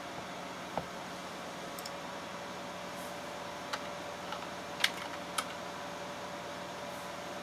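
A few separate computer keyboard key clicks, most of them between about three and a half and five and a half seconds in, the loudest near five seconds, over a steady hum and hiss.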